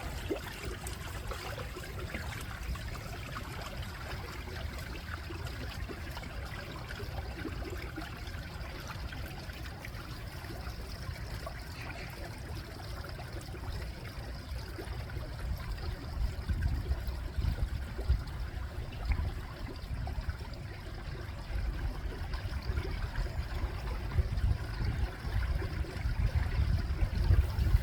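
Small stream of water trickling and flowing over stones in a steady rush, with an uneven low rumble that swells in gusts through the second half.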